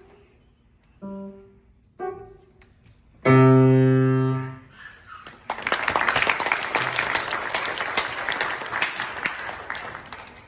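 Grand piano playing the last notes of a piece: two single notes, then a loud final chord held for about a second before fading. Audience applause starts about five and a half seconds in and carries on.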